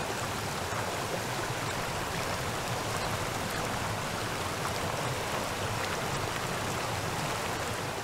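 Floodwater rushing out through a breached earth dam: a steady, unbroken rush of a torrent of water.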